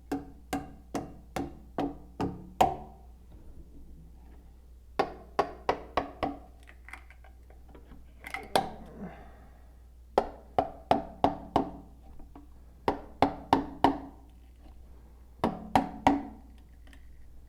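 Repeated hammer strikes on ringing metal, in quick bursts of four to seven blows with short pauses between: old, rotten copper drain pipe being knocked out of a cast iron hub.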